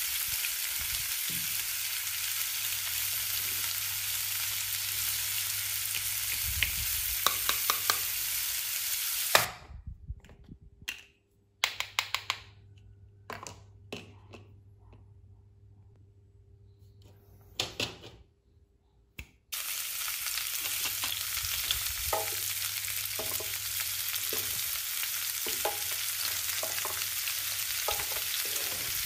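A steady sizzling frying hiss with light clicks and taps of plastic toy food and cookware. About a third of the way in the sizzle cuts off for about ten seconds, leaving only a few quiet taps, then comes back with more clicking.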